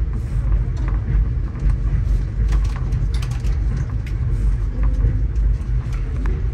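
Steady low rumble of a stainless steel passenger coach rolling along the track, heard from inside the car, with scattered clicks and knocks from the wheels and car body, clustered about two and a half to three and a half seconds in.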